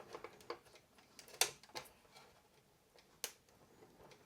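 A few sharp, separate small plastic clicks and taps, the loudest about a second and a half in and again near three and a quarter seconds, as wiring connectors are handled and unplugged inside a 3D printer's filament-feeding unit (Bambu Lab AMS 2 Pro).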